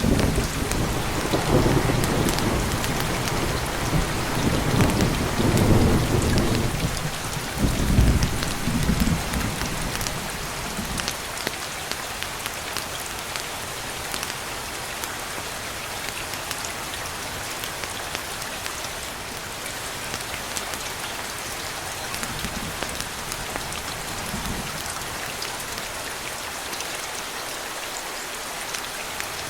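Steady rain falling, with a long roll of thunder rumbling low over the first ten seconds, loudest around five to eight seconds in, and a couple of fainter rumbles later on.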